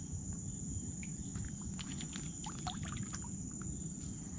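Scattered drips and small splashes of water, clustered in the middle, over a steady low wash of water noise and a thin, steady high-pitched whine.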